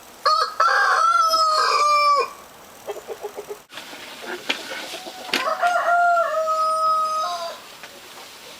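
Rooster crowing twice, each crow a long held call of about two seconds, with a few short clucking notes between the crows.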